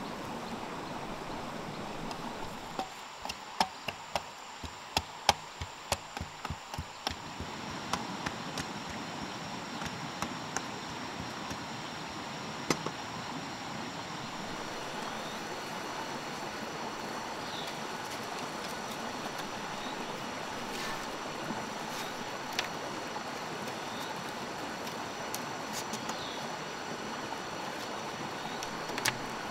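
Steady hiss of a running stream, with a quick run of about a dozen sharp knocks from about three to seven seconds in and a few single knocks later.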